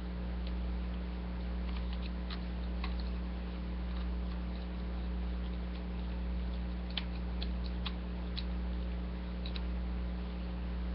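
Steady electrical hum with scattered light clicks of a plastic Transformers action figure being handled and posed, several in quick succession past the middle.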